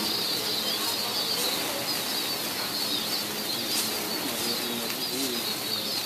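A flock of small white birds flapping their wings as they fly out of an opened cage, over a steady high-pitched chirring in the background.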